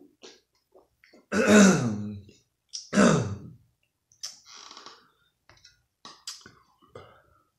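Two loud, rough throat sounds from a man, about a second and a half apart, each falling in pitch. They are followed by softer sips, swallows and small clicks as he drinks from a soda can.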